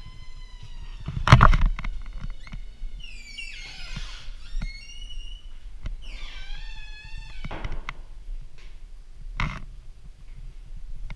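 Doors swinging shut with a loud thud about a second and a half in and again near the end. High, wavering squeals fall in between.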